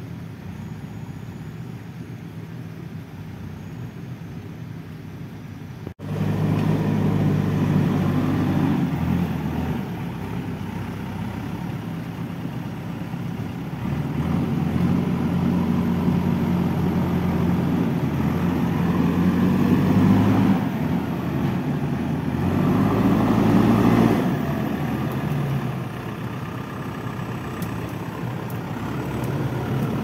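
JCB 3DX backhoe loader's diesel engine working, its steady low note rising and easing as the load changes. About six seconds in the sound jumps abruptly to a louder level.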